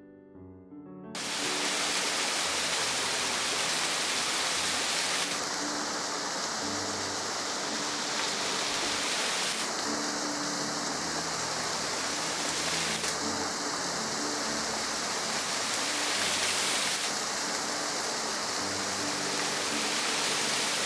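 Small waterfall pouring and splashing down a mossy rock face, a steady rush of water that cuts in suddenly about a second in. Soft piano music continues faintly underneath.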